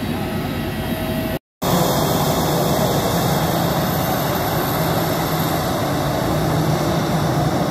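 Airbus A320 jet engines running at idle, a steady rush of engine noise with a low hum, broken by a brief dropout about one and a half seconds in.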